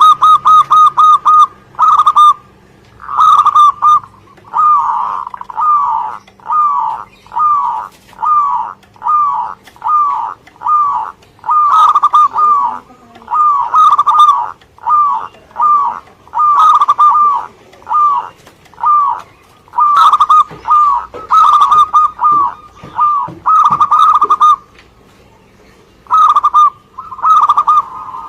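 Zebra dove (perkutut) cooing: a long run of short, rolling coos, all at the same pitch and repeated in quick succession, with a brief pause near the end.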